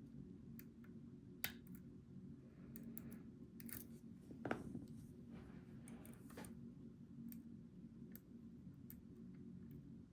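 Lock picks working inside a Goal V18 pin-tumbler lock: sparse small metallic clicks and scrapes, with a louder knock about four and a half seconds in, over a steady low hum.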